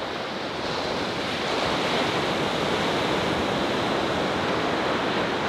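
Ocean surf breaking on a sandy beach: a steady wash of waves, swelling slightly after about a second.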